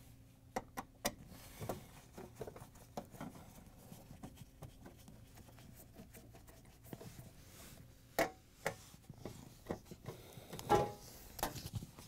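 Faint clicks, scrapes and handling noises of a quarter-inch nut driver taking screws out of a dishwasher's lower metal access panel, with two sharper knocks about eight and eleven seconds in.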